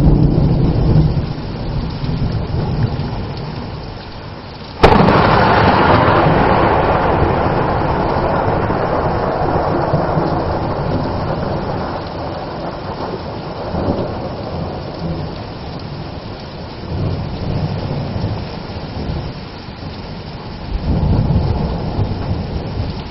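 Heavy rain falling through a thunderstorm. About five seconds in, a sudden close thunderclap cracks and then rolls on, fading over about ten seconds. There are lower rumbles at the start and twice more near the end.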